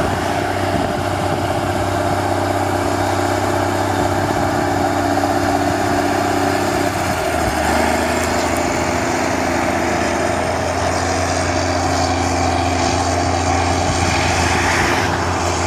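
Rába 250 tractor's six-cylinder diesel engine running steadily under load while pulling a tillage implement, its pitch dropping a little about seven seconds in.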